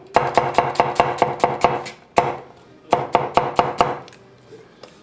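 Large kitchen knife rapidly dicing white onion on a wooden butcher-block cutting board: two fast runs of sharp strikes, about seven a second, with a short pause between them, dying away in the last second.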